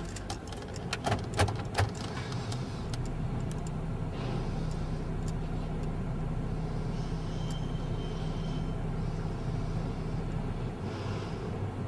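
Car engine idling steadily, heard from inside the car, with a few sharp clicks in the first two seconds.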